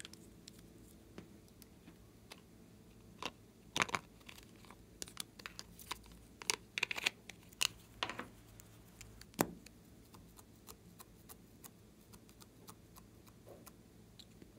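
Small plastic makeup containers being handled and opened: scattered clicks, taps and light rustles of caps and tubes, busiest in the middle with one sharper tap after about nine seconds.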